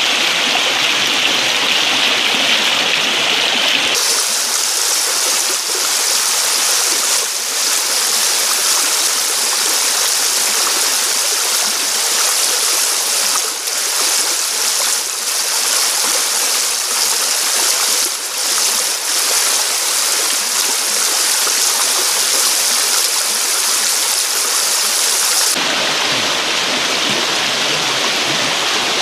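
Shallow, fast river water rushing over rocks close by, a loud steady wash. About four seconds in it turns hissier and brighter, and it turns back to a duller wash a few seconds before the end.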